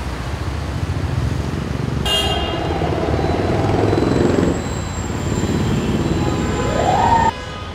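Road traffic at night: a steady rumble of passing vehicles, with car horns honking from about two seconds in. A vehicle's engine pitch rises near the end before the sound cuts off abruptly.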